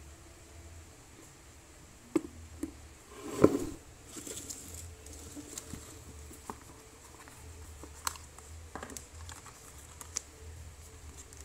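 Hands handling a tablet's cardboard box and its paper inserts: scattered light taps and clicks, with one louder knock about three and a half seconds in followed by a brief rustle of paper.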